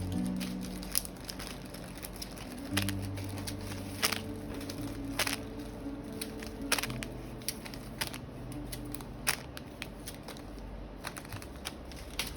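Handling of packaging or small parts: scattered sharp clicks and light crinkling and crackling, with faint steady low tones beneath.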